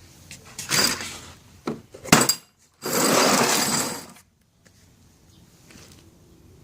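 Metal impact sockets clinking and rattling in their plastic carrying case as it is handled, with a few sharp clicks and a longer clatter in the middle.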